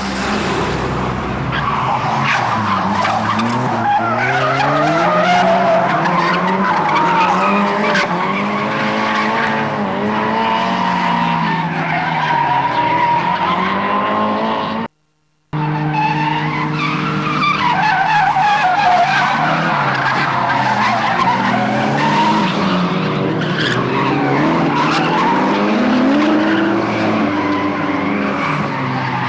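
Drift cars, among them a Toyota AE86 and a Nissan Skyline R34, sliding through street corners: engines revving up and down over and over while the tyres squeal. The sound cuts out for about half a second midway.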